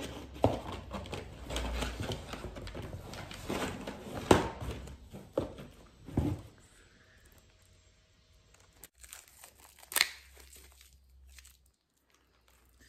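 Packaging crinkling and tearing, with scattered knocks, as a small parcel is opened by hand. It goes quieter after about six seconds, with one sharp click about ten seconds in.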